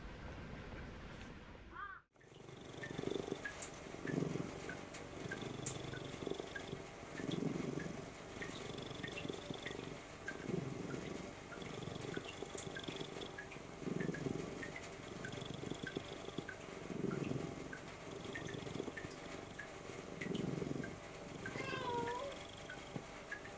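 Domestic cat purring close up, swelling and fading with each breath, the strongest swells about every three seconds. A short chirping call near the end.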